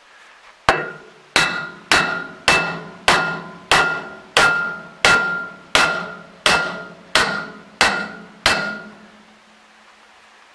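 A mallet knocks a chain sprocket onto a roller shaft of a Claas Rolant 46 round baler. Thirteen even blows land about one every two-thirds of a second, each with a short metallic ring, and they stop a couple of seconds before the end.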